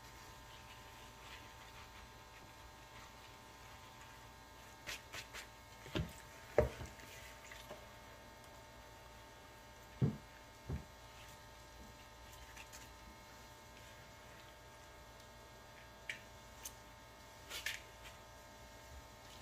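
Kitchen handling sounds: a handful of scattered knocks and clicks, the loudest about six and ten seconds in, over a steady hum.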